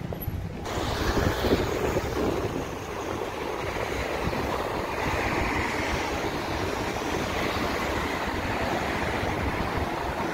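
City street traffic: cars passing on a multi-lane road, a steady rush of tyre and engine noise.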